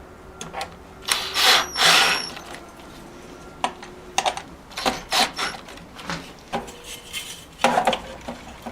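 Tools and bracket hardware being handled: two loud scraping rustles early on, then a string of clicks, knocks and scrapes.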